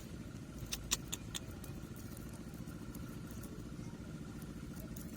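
A small engine running steadily with a low, fast-pulsing drone, with a few sharp clicks about a second in.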